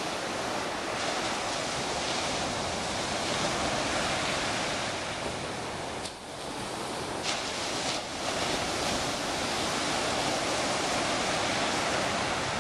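Small waves breaking and washing up a sandy beach in calm surf, a steady rushing hiss. The rush dips briefly a little past halfway, with a couple of faint clicks.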